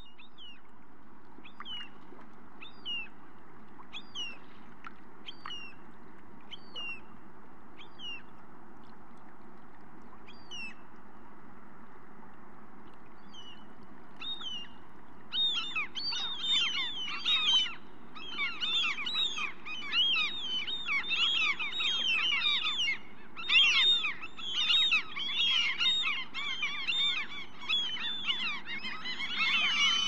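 Common gulls calling. At first single short, high calls come about once a second over a steady background hiss; then, about halfway, a large flock breaks into dense, overlapping calling that is much louder.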